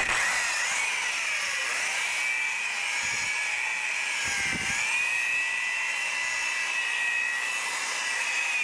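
Electric rotary polisher with a pad, buffing a sealed surfboard: a steady high motor whine that starts suddenly and dips briefly in pitch around the middle. It is polishing off acrylic UV-protective sealant, the last finishing step on the board.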